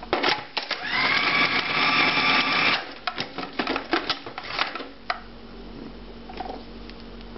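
Cuisinart food processor motor running in one pulse of about two seconds, chopping ice water into a coarse pie dough, with light clicks and knocks before and after it.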